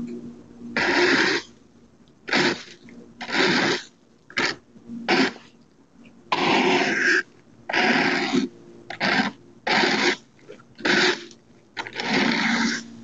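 Leaf rake scraping across an asphalt driveway and dragging dry leaves, in repeated strokes about once a second.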